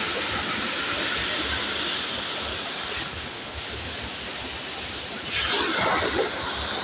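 Rushing water of a waterfall: a steady, loud rush of falling water that eases slightly about three seconds in.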